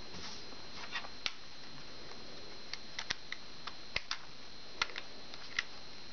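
About a dozen small, sharp, irregularly spaced clicks and taps of a plastic back case being fitted and pressed onto an iPhone 4, over a steady hiss with a faint constant high tone.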